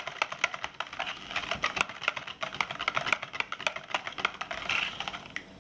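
Hand whisk beating thick sour cream and condensed milk in a large pan: rapid, irregular clicking and scraping of the whisk against the pan, about five strokes a second, easing off near the end.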